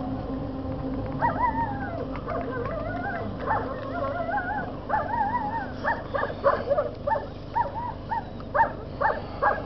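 A young dog whining in high, wavering tones, which break up in the second half into a run of short, quick yips, about two or three a second.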